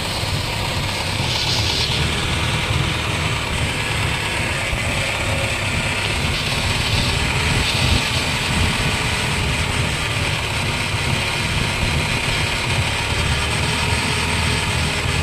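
Holden Barina TK on the move with a steady low rumble from a worn wheel bearing, under a hiss of road noise that swells a few times.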